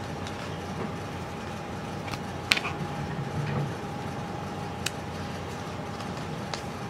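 Sleeved trading cards being handled and set down on a wooden table: a few light clicks and taps, the sharpest about two and a half seconds in. Under them runs a steady room hum with a faint steady tone.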